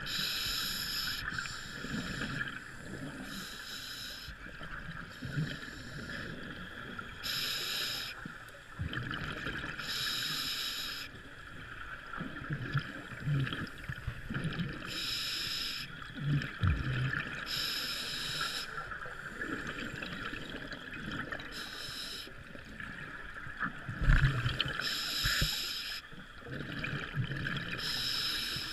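Scuba diver breathing through a regulator, heard underwater: about nine bursts of hissing, bubbling noise, each lasting about a second and coming every two to four seconds, over a steady hiss.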